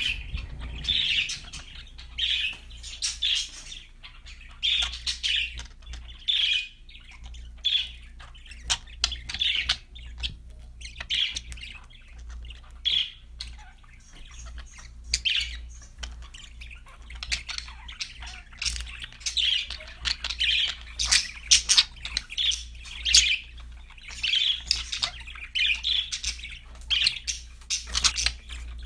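Pet budgerigars (parakeets) chattering and chirping in quick, irregular bursts of high warbling calls and squawks, with a steady low hum underneath.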